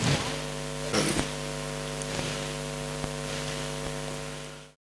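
Steady electrical mains hum, with a couple of brief noises in the first second or so, fading out to silence near the end.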